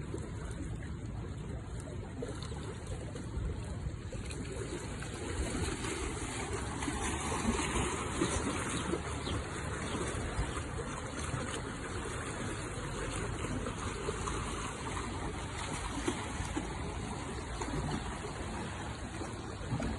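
Wind rustling through tree leaves: a steady, noisy rustle that swells somewhat a few seconds in and eases again.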